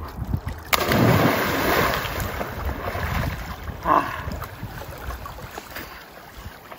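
A splash of water about a second in, followed by sloshing and lapping that gradually dies down.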